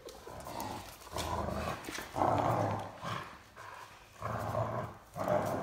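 Great Dane puppy growling during a game of tug of war: a run of rough growls, one after another with short breaks.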